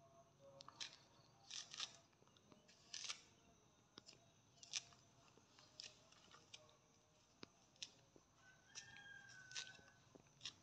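Faint, irregular crisp snaps and scrapes, a few each second, as pieces of soft white husk are peeled off a trimmed young coconut.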